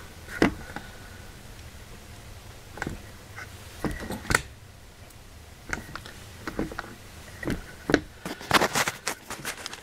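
Scattered handling noises: a dozen or so short knocks, clicks and scrapes, irregularly spaced and busiest about four seconds in and near the end, as the layout work and the camera are shifted about.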